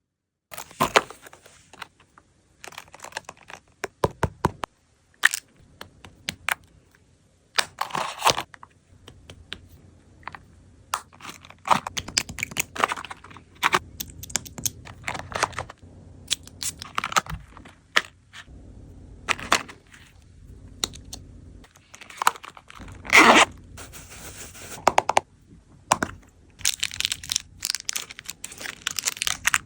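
Mini cosmetics and their packaging being unboxed and packed into a pouch by hand: a string of sharp clicks, taps and knocks from small cases, with stretches of crinkling packaging, the longest near the end.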